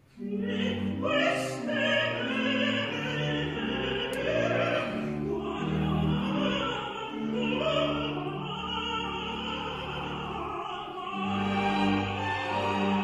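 Orchestral classical music with an operatic singing voice, starting suddenly out of near silence.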